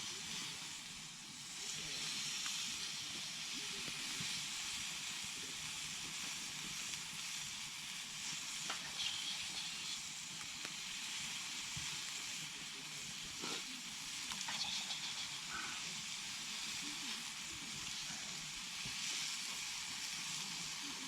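Food sizzling steadily as it cooks, with a few faint clicks.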